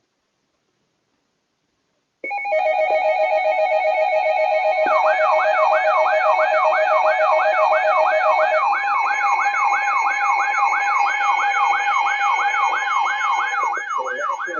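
Emergency Alert System attention tone: a loud electronic alarm starting about two seconds in, made of several steady tones with a fast-pulsing lower tone, joined about five seconds in by a repeating rising whoop at roughly two and a half sweeps a second.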